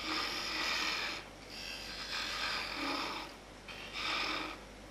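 A 1/8 inch parting tool cutting into spinning beefwood on a wood lathe, undercutting to part the piece off: a hissing scrape in three cuts of one to two seconds each with short pauses between, over the low hum of the running lathe.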